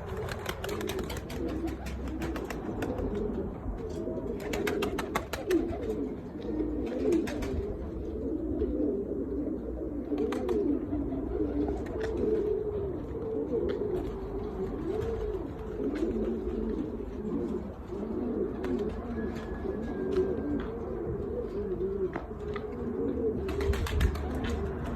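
Several domestic pigeons cooing without a break, their low calls overlapping, with scattered short clicks and rustles among them.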